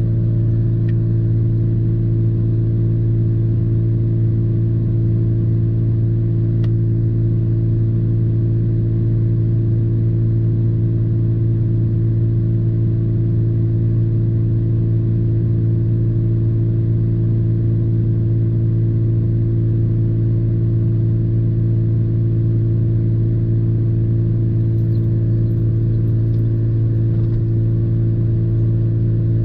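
Pickup truck engine idling, a steady low hum heard from inside the closed cab.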